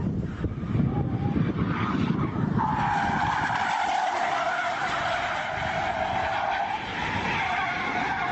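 Car tyres squealing in a long, sustained skid as a sedan drifts sideways, starting about two and a half seconds in, over a steady low rumble.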